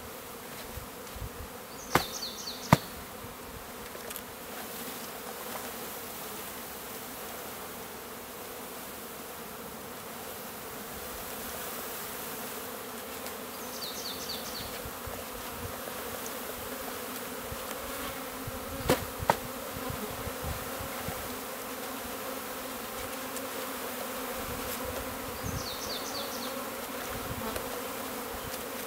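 Steady buzzing hum of a mass of honeybees from a freshly opened package being installed into a hive. A few sharp knocks break in, two near the start and two about two-thirds through.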